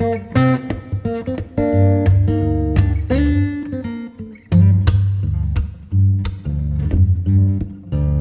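Background music: quick plucked guitar notes over a strong bass line.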